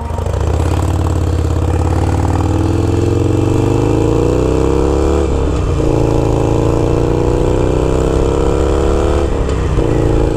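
Harley-Davidson Iron 883 Sportster's air-cooled V-twin, running through a Gallop Flying Comet 2-into-1 exhaust, accelerating under way. The engine note climbs steadily, dips as the bike shifts up about five seconds in, climbs again, and shifts up once more near the end.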